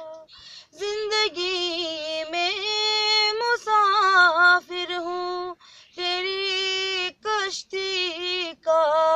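A woman singing a ghazal solo with no accompaniment, in long held notes that bend and waver in ornaments, broken by a few short breaths.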